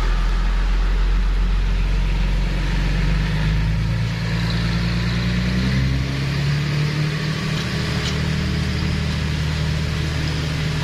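Diesel engine of a Hino 500 truck running steadily at close range as the truck crawls past, its note shifting slightly about halfway.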